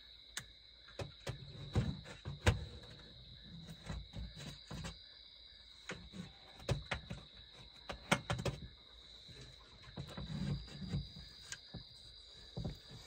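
A steady high trill of crickets, with scattered light taps and low knocks from handling work at close range.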